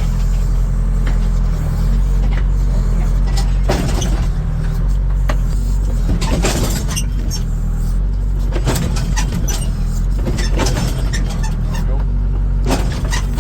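Case 580K backhoe's diesel engine running steadily, with occasional clanks and knocks over it.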